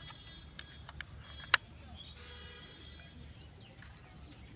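Small plastic toy dump truck handled by hand: a few light clicks, then one sharp plastic click about a second and a half in.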